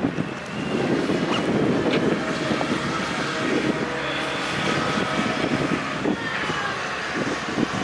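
Steady engine drone with a few faint high whines from heavy rail-site machinery, with wind buffeting the microphone.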